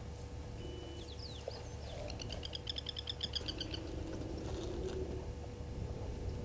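A bird calling: a short whistled note and a few quick slurred notes about a second in, then a fast, even run of high chirps lasting nearly two seconds. Underneath runs a steady low hum and rumble.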